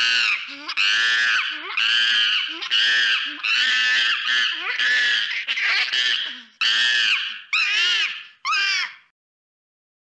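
A monkey's screaming calls, about a dozen short, high-pitched screams in quick succession, cutting off suddenly about nine seconds in.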